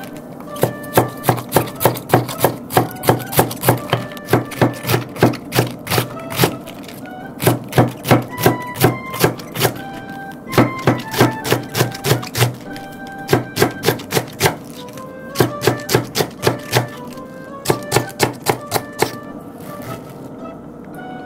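Kitchen knife finely shredding cabbage on a wooden cutting board: quick chopping strokes, about three a second, in runs with short pauses, over light background music.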